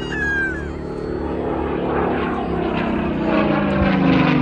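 Spitfire Mk XIX's Rolls-Royce Griffon V12 engine running as the fighter flies past, a steady propeller-engine drone that grows louder and drops in pitch near the end as it passes.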